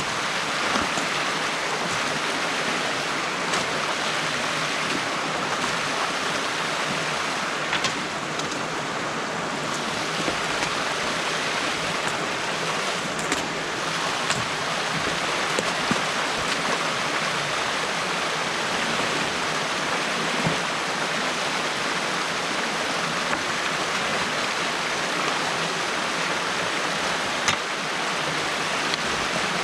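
Stream water rushing steadily through an opening in a beaver dam as it is torn down by hand, with a few faint clicks scattered through it.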